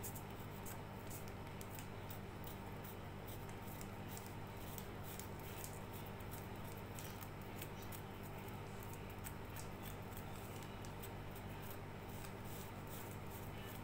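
Tips of small spring-loaded craft snips scratching and gouging along the grain of a thin balsa-wood gate: a run of small irregular scrapes and clicks, roughing the wood to give an aged, weathered surface. A steady low electrical hum sits underneath.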